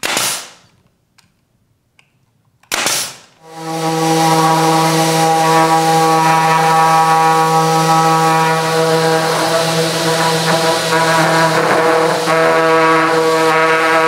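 A DeWalt brad nailer fires twice, two sharp shots about three seconds apart. Then a Festool ETS 150/5 EQ random orbital sander spins up and runs with a steady hum, sanding a wooden box.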